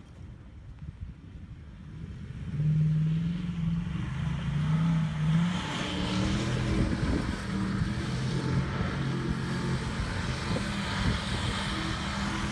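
Ford Raptor pickup's V8 engine running as the truck drives on sand: a low engine drone that grows louder about two and a half seconds in and steps up in pitch a few seconds later, over a low rumble.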